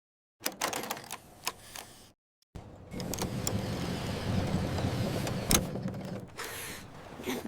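Factory machinery sound effects: a quick run of clicks and clatters, then about two and a half seconds in a steady mechanical whirr sets in, with a few sharp clicks over it.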